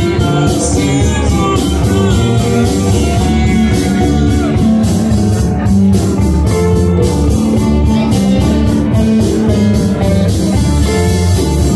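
Live rock band playing loud: electric guitars over bass and a drum kit, with congas played by hand in the mix.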